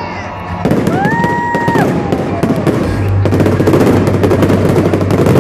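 Fireworks display: a dense, rapid run of crackling pops and bangs that thickens after about three seconds, with a high whistle rising, holding and dropping about a second in.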